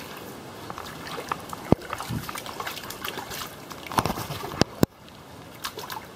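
Shallow water in an inflatable paddling pool sloshing and splashing as a Belgian Malinois wades and is moved about in it. A few sharp knocks cut through, the loudest nearly two seconds in and a cluster around four to five seconds in.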